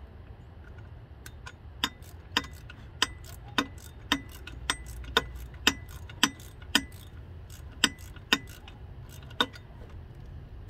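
A run of sharp metallic clicks, roughly two a second and slightly uneven, some with a short ring, over a low steady hum.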